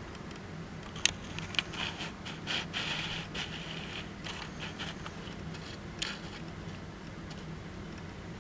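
Small objects being handled: two sharp clicks, then a couple of seconds of scraping and rustling, and one more click near six seconds in, over a steady low hum.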